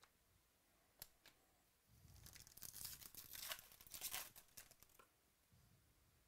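Foil wrapper of a Bowman Chrome baseball card pack being torn open and crinkled by hand: about two and a half seconds of tearing and crackling, starting about two seconds in. A single light click comes about a second in.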